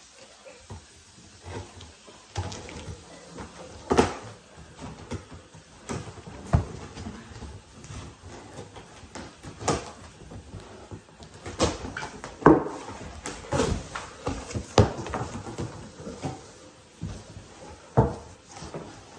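Scissors cutting through packing tape and cardboard on a shipping box, with the flaps being pulled open: irregular sharp snips, knocks and cardboard rustling, a few louder knocks scattered throughout.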